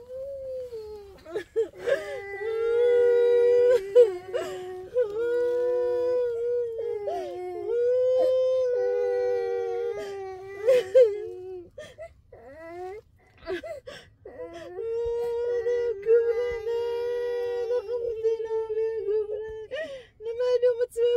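A high voice wailing and crying in long, wavering held notes, broken now and then by short breaks.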